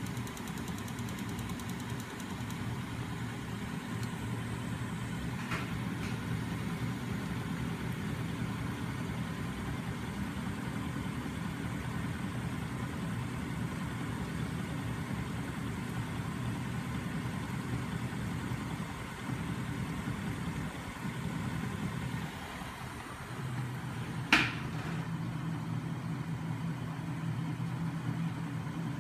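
Home-built magnet-motor rig running: a small DC starter motor spins the magnet crankshafts and flywheel, making a steady low mechanical hum. The hum dips briefly and settles at a slightly different pitch about three-quarters of the way in, and a single sharp click comes just after.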